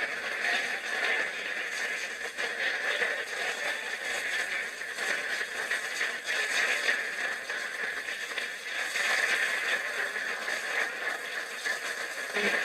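Audience in a lecture hall applauding and cheering, a steady rustling crowd noise that swells and fades.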